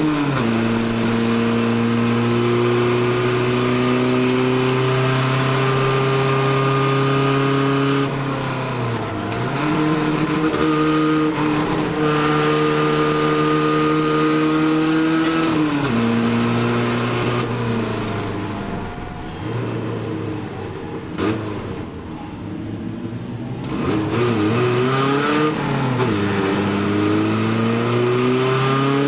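Chevy LUV race truck's engine heard from inside the stripped cab at racing speed. The note drops sharply just after the start, then climbs slowly through each gear, with two more drops and climbs. In the middle it falls quieter for several seconds off the throttle, then rises and falls a few times before pulling up again near the end.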